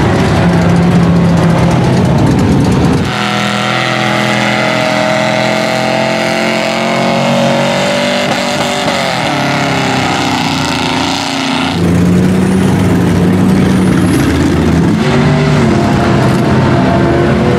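Engines of lifted mud trucks on giant tires running and revving, the pitch rising and falling in places. The sound changes abruptly about three seconds in and again near twelve seconds.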